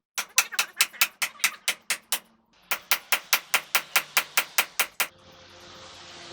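Two runs of quick, sharp taps or clicks, about five a second, with a short break between them. A steady hiss starts about five seconds in.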